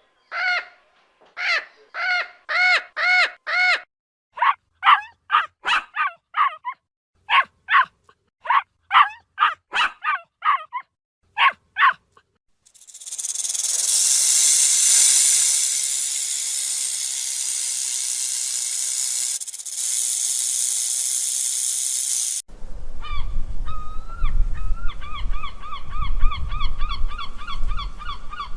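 Waterfowl calling: a quick run of short, repeated honks for about twelve seconds, then a long hissing noise, then rapid trilled calls over a low rumble near the end.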